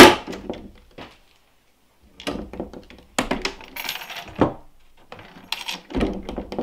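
Metal stay chain jingling and rattling, with wooden knocks, as the hinged lid of a wooden crate is closed and opened again. The sounds come in irregular clusters, one burst just after the start, a busier stretch in the middle and a heavy knock near the end.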